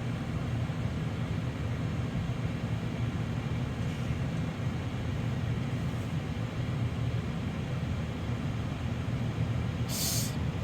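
Steady low rumble of a car driving: engine and tyre noise. A brief hiss sounds near the end.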